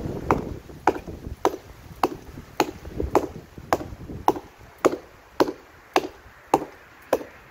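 Axe chopping into a fallen tree limb: a steady run of sharp chops, about two a second.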